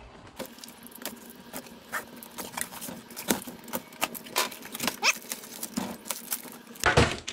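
Cardboard box being slit open with a box cutter, its flaps pulled back, and a plastic bag lifted out: a run of small scrapes, taps and crinkles. A bird chirps once about five seconds in, a short rising note, and there is a louder knock near the end.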